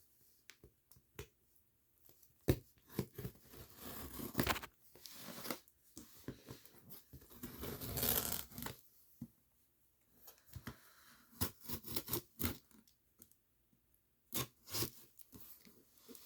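A box and its packaging being opened by hand: irregular tearing and scraping rasps mixed with sharp clicks and knocks, the longest tear about eight seconds in.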